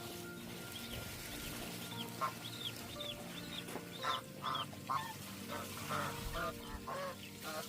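Geese honking in repeated short calls from about two seconds in, growing busier near the end, over a string of high, quick peeping chirps from birds. Background music plays underneath.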